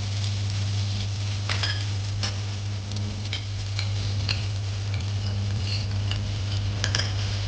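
Noodles being stir-fried in a pan: a steady sizzle with irregular sharp clicks of a cooking utensil against the pan, over a steady low hum.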